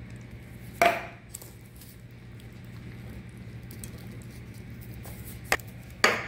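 Kitchen utensils and dishes knocking as vegetables are put into a cast-iron skillet: one sharp knock about a second in and two more near the end, over a low steady hum.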